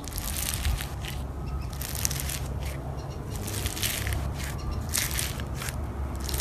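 Slime being squeezed and pressed, giving repeated bursts of crisp crackling and crunching clicks.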